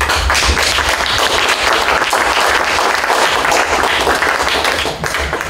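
Audience applauding: many hands clapping in a dense, steady patter that fades out near the end.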